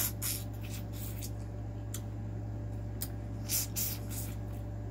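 Close-miked wet eating sounds: lips smacking and sucking on a sauce-coated boiled shrimp in a run of short smacks, loudest about three and a half seconds in.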